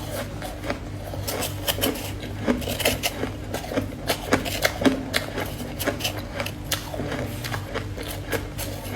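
Close-miked crunching of ice being bitten and chewed: dense, irregular crisp crackles, several a second, over a steady low hum.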